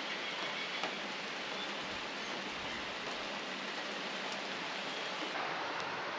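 Rain falling: a steady even hiss with a few faint drop ticks.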